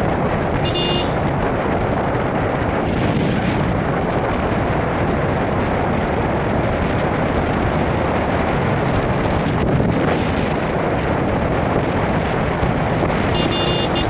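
Steady rush of wind and road noise from a vehicle riding along a paved road. A short horn beep sounds about a second in, and another near the end.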